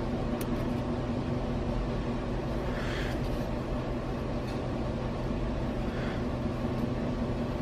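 A steady mechanical hum with a constant low tone, and a few faint clicks about three and six seconds in.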